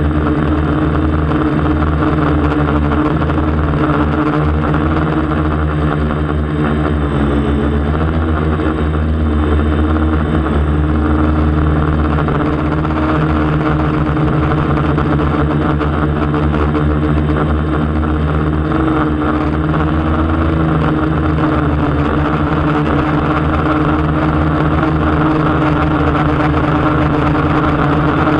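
DJI Flamewheel 450 quadcopter's four electric motors and propellers buzzing steadily, heard from the camera mounted on its frame, with a slight shift in pitch about seven seconds in as it manoeuvres.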